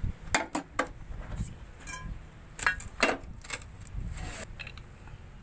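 Metal hand tools clinking and clanking against metal parts during work on a truck differential: a series of sharp separate clinks, one ringing briefly about two seconds in.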